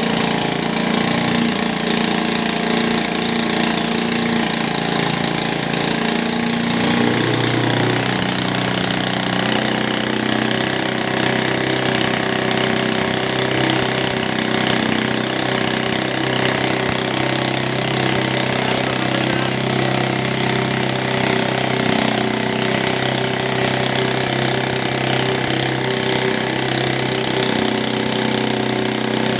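Motorcycle engine running, belt-driving a piston air-compressor pump; a steady mechanical running sound mixed with the pump's working. Its low note shifts lower about seven seconds in.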